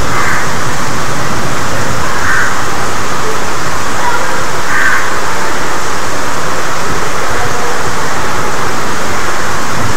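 Heavy rain falling steadily on leaves, potted plants and a plastic tarp, an even, loud hiss. A few short calls sound over it, one near the start, one about two seconds in and one near five seconds.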